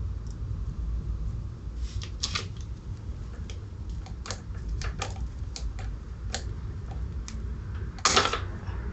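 Scattered sharp metallic clicks and taps as a spring clip is worked onto the master link of a motorcycle drive chain, with a louder short scrape a little after eight seconds.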